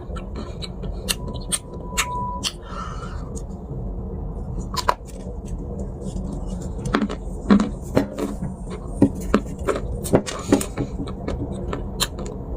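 Dry clay being crunched and crumbled, a string of sharp, irregular crackles over a steady low hum. The crunches come louder and closer together in the second half.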